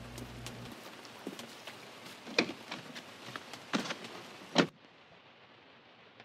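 Paper pages of a softcover workbook being leafed through and turned by hand, a light crackling rustle with three sharper page-flap swishes in the second half.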